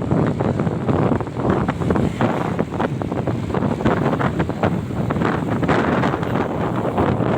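Wind buffeting the microphone: a loud, rough rushing noise with constant irregular thumps and gusts.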